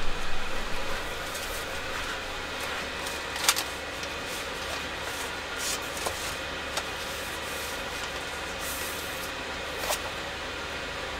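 Handling of a vinyl record and its sleeves: paper rustling in the first second, then a sharp tap and a few light clicks as the LP is drawn out of its sleeve. A steady background hiss runs underneath.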